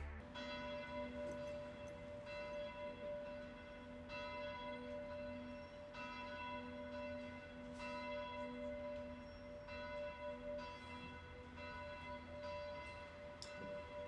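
Church tower bell tolling in a slow, even rhythm, one stroke about every two seconds. Its ringing hum carries on between strokes.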